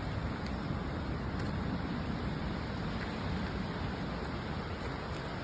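Wind blowing across the microphone: a steady rushing noise, heaviest in the low end.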